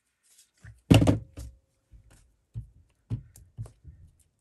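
Craft supplies knocking and tapping on a tabletop: one loud knock about a second in with a brief ringing tone after it, then several lighter taps about half a second apart.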